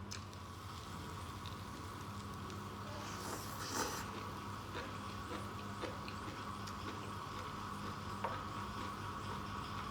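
Faint eating sounds: soft chewing and scattered small clicks, with a short rustle about three and a half seconds in, over a steady low hum.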